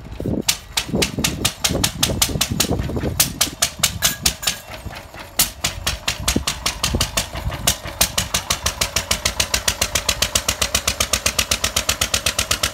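Single-cylinder Lister stationary engine running in a motorbike frame. It fires unevenly at first, then settles into a steady beat of about seven or eight firing strokes a second.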